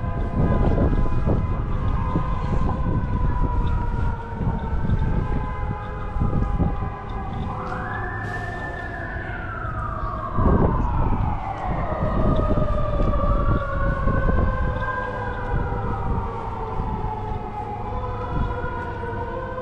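Emergency vehicle sirens wailing, their pitch rising and falling slowly in overlapping sweeps, with one sweep dropping sharply about halfway through, over a low street rumble.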